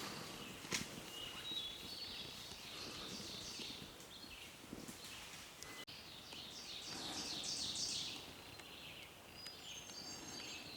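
Faint songbirds singing in the woods: scattered chirps and whistles, with a quick trill of notes about seven seconds in. A single sharp click sounds just under a second in.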